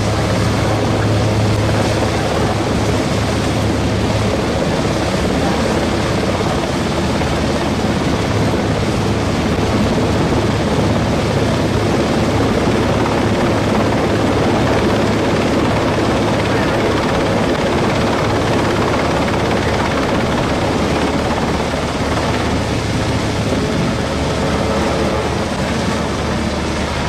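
Loud, steady machine noise with a constant low hum and no pauses or changes in pitch, typical of an engine or turbine running continuously.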